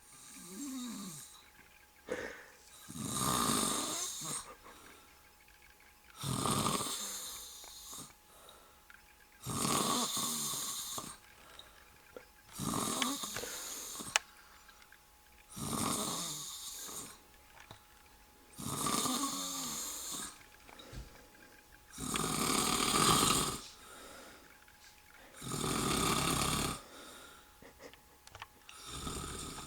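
A middle-aged man snoring heavily in his sleep after a night of drinking, with a loud, rasping snore about every three seconds. Some snores carry a low droning tone that slides downward.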